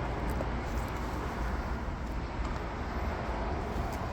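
Steady low rumble and hiss of background noise, with a few faint light clicks.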